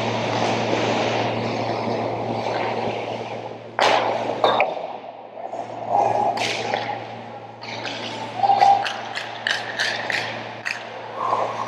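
Ice hockey play on a rink: skates scraping across the ice, a sharp crack about four seconds in, and a quick run of stick-and-puck clacks near the end, over a steady low hum.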